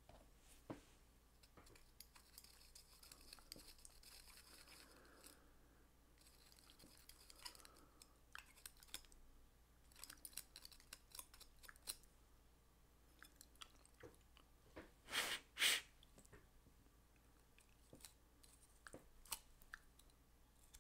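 Faint clicks and light scraping of a small metal three-jaw lathe chuck and a screwdriver being handled and worked at on a bench. Two short, louder noises come in quick succession about fifteen seconds in.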